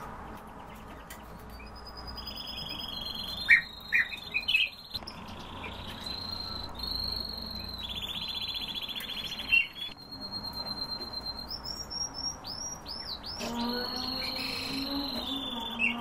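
Several caged songbirds chirping and calling, with short chirps, rapid trills and high whistled notes overlapping. A lower, droning sound joins about three-quarters of the way through.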